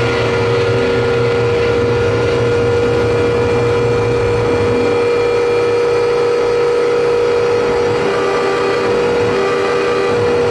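Live harsh noise music from electronic gear: a dense, loud wall of distorted noise under a held drone tone, with a low rumble pulsing beneath. About eight seconds in, a second, lower tone starts stuttering on and off.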